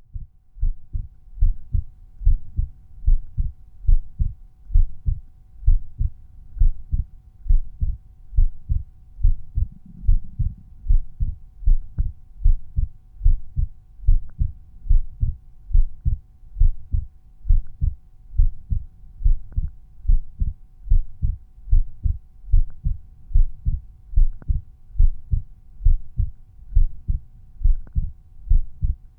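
Resting human heartbeat auscultated at Erb's point on the chest: regular lub-dub pairs of low thumps, a little over one beat a second.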